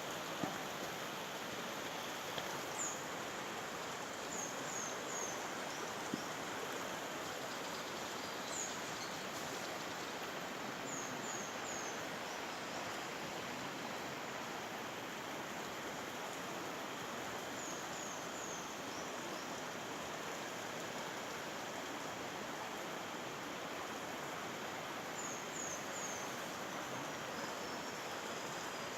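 Steady rushing of water, with a bird giving short, high, downward-sliding calls over it, mostly in quick runs of three and repeated every several seconds.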